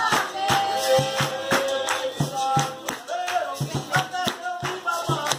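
Capoeira roda music: berimbaus and percussion with group singing and hand clapping to a steady beat.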